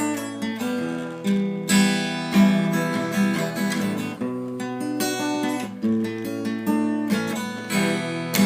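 Acoustic guitar strumming a sequence of chords, with no singing yet.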